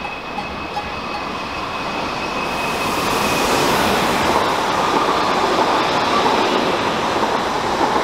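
BLS electric multiple-unit train passing close by on a curve, its rolling wheel and track noise swelling as it approaches and goes by. A thin high whine fades out about three and a half seconds in as the rolling noise grows loudest.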